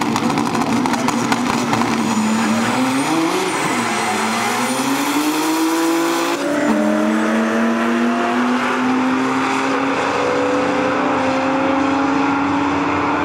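Dodge Stealth's V6, fitted with a Borg Warner S380 single turbo running 23 psi of boost, at full throttle on a drag-strip pass. The engine note climbs through the gears, dropping at gear changes about four and six and a half seconds in, then rises slowly on the long top-end pull.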